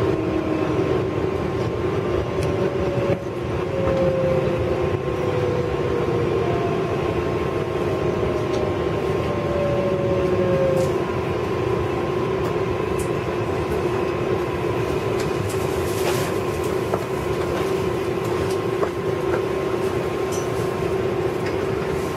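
Ride noise inside an R188 subway car: a steady rumble with a constant hum. During roughly the first ten seconds a whine falls in pitch, as the train pulls into a station.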